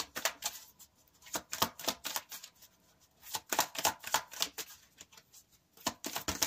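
Tarot cards being shuffled and handled by hand: an irregular run of crisp card clicks and slaps, with short pauses between them.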